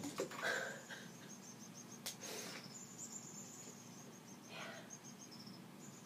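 Faint, high-pitched chirping made of short pulses repeating about four to five times a second, like an insect, with a brief pause near the end. A few soft swishes come through underneath it.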